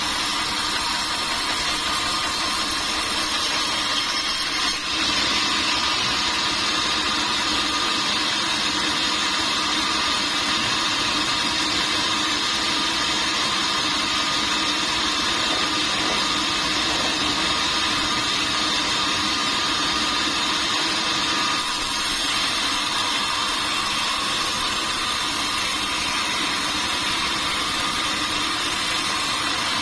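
Sawmill machinery running steadily: a continuous mechanical hiss with a high, even whine, with a brief dip about five seconds in.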